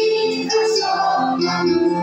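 Children's choir singing a song together, with an electronic keyboard playing along in organ-like sustained tones; the notes are held and move step by step without a break.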